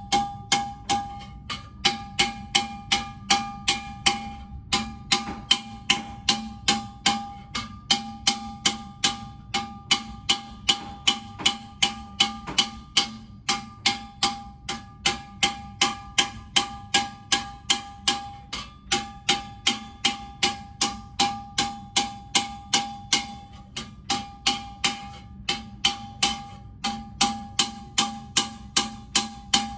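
Small metalsmithing hammer striking a hand-raised copper vase held over a steel stake, about three blows a second. Each blow leaves a bright metallic ring from the copper body, with a few short pauses between runs of blows.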